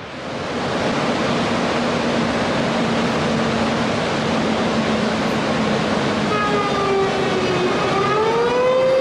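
Water rushing out of a concrete dam's spillway outlets in a heavy, steady discharge. About six seconds in, a siren starts: its pitch dips, then rises to a held tone.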